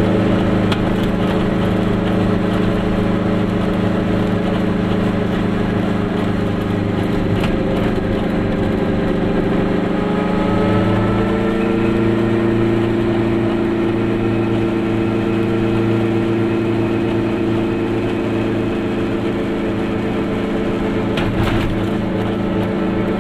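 Goggomobil's small air-cooled two-stroke twin engine running under way, heard from inside the cabin with road noise; its note rises a little about halfway through.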